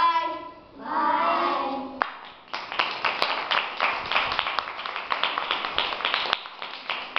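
A boy's voice for about the first two seconds, then from about two and a half seconds in a group of children applauding with many fast, irregular hand claps.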